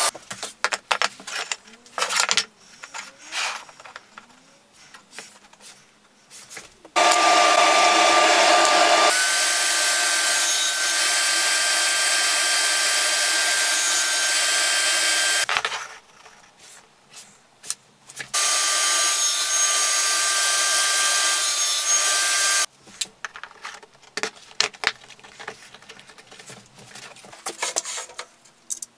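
Table saw running and cutting wood on a crosscut sled: a steady whine with cutting noise in two runs of several seconds each, about seven and eighteen seconds in, each starting and stopping abruptly. Between the runs come light knocks and handling clicks of wood and tools on the saw table.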